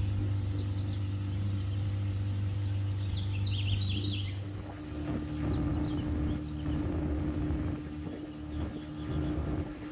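Boat motor running with a steady low hum whose character changes about halfway through. Short bird chirps come over it several times.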